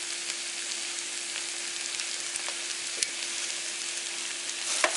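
Chopped onion, carrot and pepper with tomato paste sizzling steadily in oil in a frying pan, over a faint steady hum, with a single light click about three seconds in.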